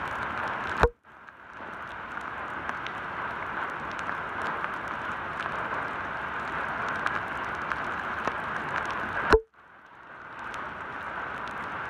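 Heavy rain falling on a wet asphalt road and its puddles: a steady hiss of rain with many small drop splashes. A sharp click about a second in and again near the end, each followed by a brief drop-out with the rain sound fading back in.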